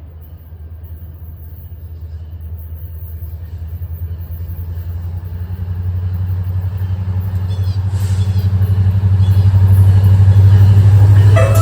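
Diesel locomotive of an approaching passenger train, its low engine drone growing steadily louder and peaking near the end.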